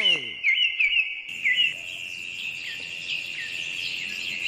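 Birds and insects in a backing nature track: quick, short falling chirps at about three a second over a steady high insect trill. The chirps thin out to an occasional one after about a second and a half.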